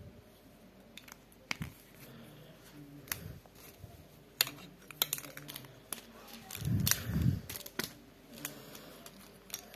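Plastic pens and pencils clicking and tapping against each other as they are handled and set down, in scattered sharp clicks with a muffled handling sound about seven seconds in.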